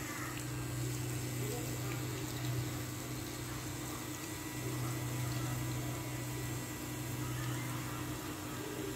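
Small 12 V DC water pump running steadily with a low hum, while its jet of water sprays from a clear tube and splashes.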